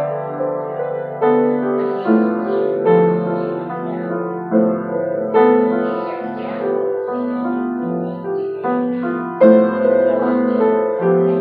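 Grand piano played by hand: chords and melody notes struck at an unhurried pace, each left ringing into the next, with the strongest chord about nine and a half seconds in.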